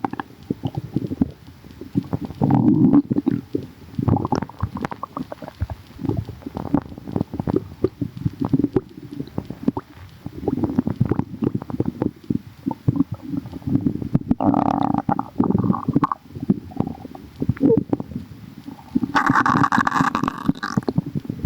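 A person's stomach rumbling and gurgling in irregular bubbly bursts, with higher-pitched gurgles twice, about two-thirds of the way through and again near the end.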